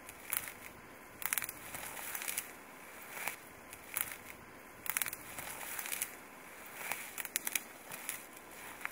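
Footsteps wading through tall dry grass and weeds: stalks crunching and swishing against legs and clothing at about one step a second.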